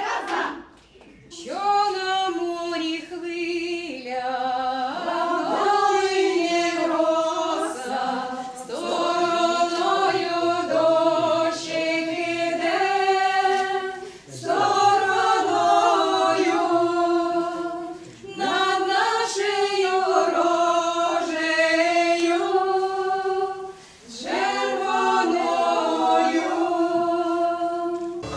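A women's folk choir singing a cappella, in long held phrases broken by short pauses for breath.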